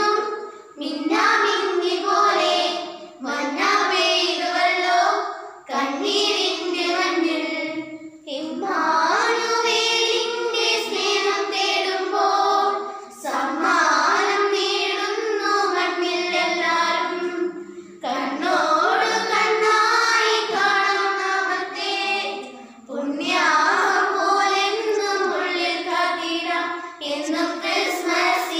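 A group of young girls singing a song together in unison, in phrases of a few seconds with short breaks for breath.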